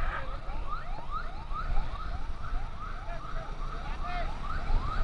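Emergency siren yelping in quick rising sweeps, about two a second, over the steady low rumble of road and wind noise.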